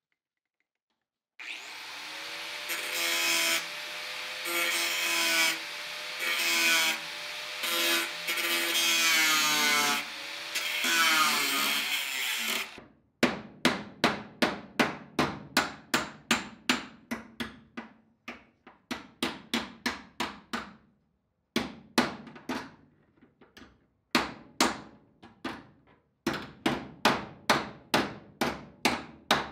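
A cutoff wheel cutting into ridged sheet steel for about eleven seconds, its whine dipping and rising under load as it trims metal out of relief cuts. Then a hammer beating the sheet metal flat: runs of sharp blows, two to three a second, with short pauses.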